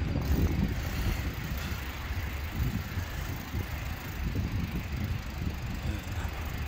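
Steady outdoor background noise: a low, uneven rumble with a faint hiss above it and no distinct events.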